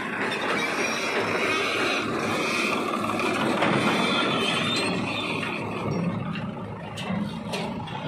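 JCB 3DX backhoe loader working: its diesel engine running under load while the hydraulic backhoe bucket digs dry soil and swings up over a tractor trolley. A few short knocks come near the end.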